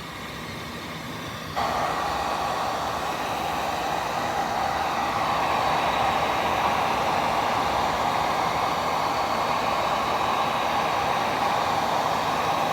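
Handheld hair dryer switching on about a second and a half in, then blowing steadily, heating the adhesive of a screen repair patch.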